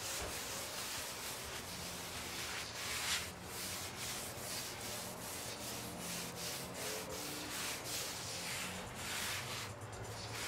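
Paper towel rubbed across a flat-top griddle plate in repeated, irregular wiping strokes, spreading a thin coat of grease over the cleaned cooking surface to season it.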